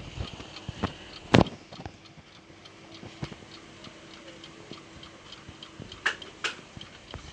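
Alarm clock ticking steadily, with a few louder knocks: one about a second and a half in and two close together about six seconds in.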